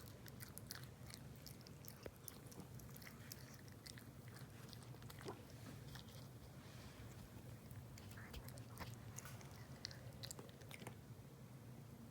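Cat eating noisily: faint, irregular wet clicks and smacks of its chewing, over a steady low hum.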